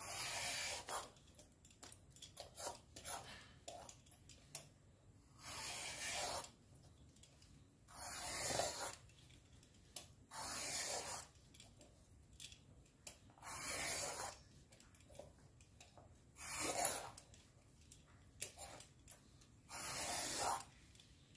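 Vegetable peeler scraping the outer skin off a snake gourd in long strokes. There are seven scrapes, each about a second long and a couple of seconds apart, with light taps in between.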